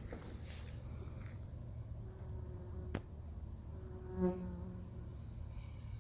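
Steady high-pitched chirring of insects among wildflowers. A bee buzzes close by for about half a second a little past the middle, and there is a single faint click near the halfway point.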